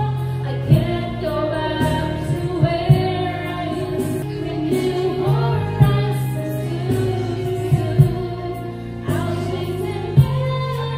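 Woman singing karaoke into a microphone over a music backing track.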